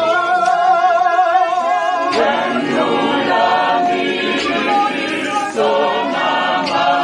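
A church congregation of men and women singing a hymn together, many voices at once, with an abrupt change in the singing about two seconds in and again about five and a half seconds in.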